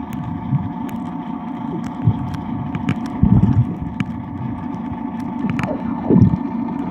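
Muffled underwater sound picked up by a submerged camera: an uneven low rumble of moving water with scattered sharp clicks over a steady hum. A couple of falling tones come about two-thirds of the way through.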